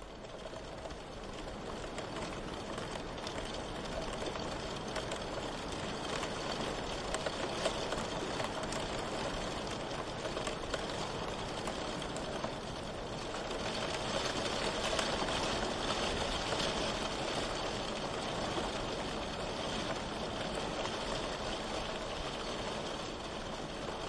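Steady rain falling, a continuous even hiss that fades in over the first couple of seconds and swells a little about halfway through.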